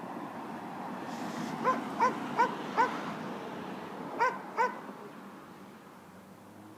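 A dog yapping: four quick high yips in a row, then two more after a short pause.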